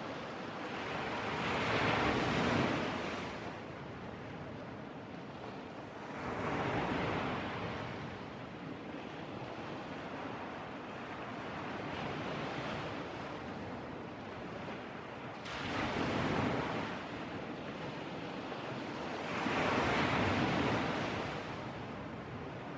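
Sea surf breaking on a beach: a steady wash of noise that swells louder about every four seconds as each wave breaks.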